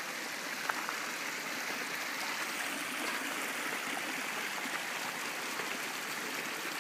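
Small mountain creek running over rocks and through a tiny waterfall: a steady rushing splash, with one brief click under a second in.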